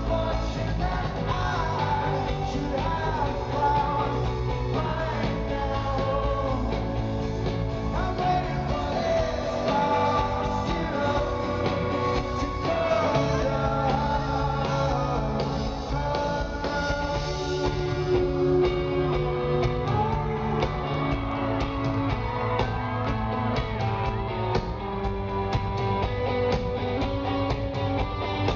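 A live rock band playing a song with a lead singer: sung vocals over electric guitar, bass and a steady drum beat.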